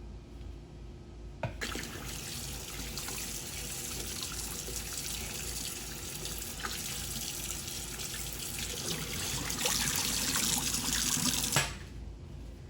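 Kitchen tap turned on about a second and a half in, water running steadily into the sink for about ten seconds, then turned off.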